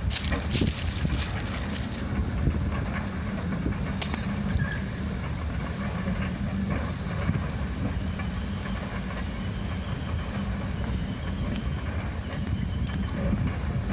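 Electric tram running along the rails: a steady low rumble with a constant hum, and scattered sharp clicks of the wheels on the track.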